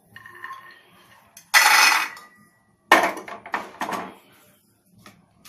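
Dry-roasted peanuts and a kitchen utensil rattling and scraping in a pan. A short loud rattle comes about a second and a half in, and a longer one starts about a second later.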